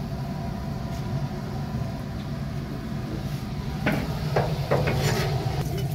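Steady low rumble of a gas burner firing under a cast-iron kazan of heating oil. A few short knocks come about four to five seconds in.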